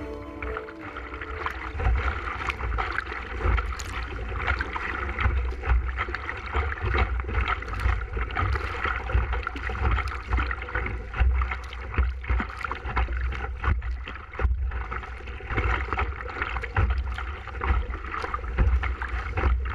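Choppy sea water splashing and slapping against a canoe's bow in short, irregular splashes, over a steady low rumble of wind on the action camera's microphone.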